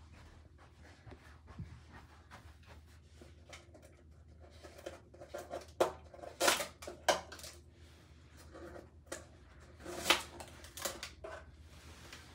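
A cardboard packing box being worked loose and pulled off the thread stand of an embroidery machine: cardboard rustling and scraping, with a few sharp, louder scrapes about six to seven seconds in and again about ten seconds in.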